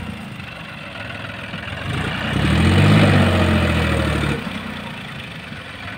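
John Deere 5105 tractor's three-cylinder diesel engine running as it pulls a tipping trailer that is dumping soil. About two seconds in, it revs up louder for roughly two seconds, then drops back to a steady run.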